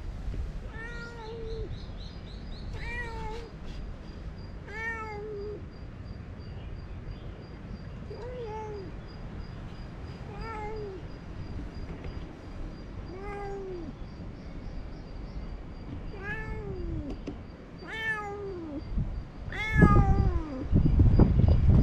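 Tortoiseshell stray cat meowing over and over, about one meow every two seconds, each call rising and then falling in pitch. Near the end a loud low rumble comes in under the meows.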